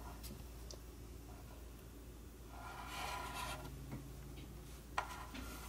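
Faint rubbing as a hand handles a 1/6-scale action figure and its plastic display base, with one sharp click about five seconds in, over a low room hum.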